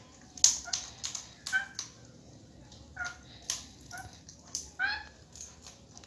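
African grey parrots eating sunflower seeds from a hand: a run of sharp beak clicks and cracks on the seeds, with short squeaky calls now and then and one rising call near the end.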